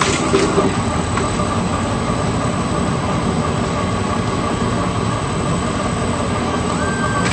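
Shredder motor running steadily with a constant mechanical hum, a few short clicks in the first second.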